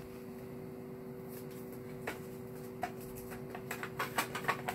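Light clicks and clatter of small objects being handled, sparse at first and growing quicker and busier near the end, over a steady low hum.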